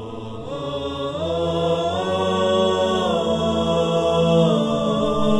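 Intro music of voices without instruments, holding long chanted notes that step up in pitch and then back down.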